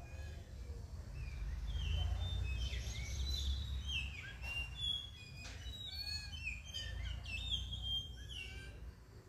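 Small birds chirping in many quick, short notes at varying pitches, busiest from about a second and a half in until near the end, over a steady low rumble.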